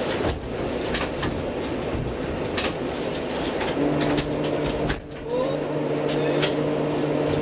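Tvärbanan A32 tram running on its rails, heard from inside at the front: a steady rumble of wheels on track with scattered clicks. A steady low hum joins about four seconds in.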